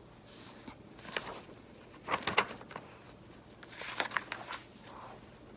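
Light rustling and small knocks of objects being handled, in four short clusters a second or two apart.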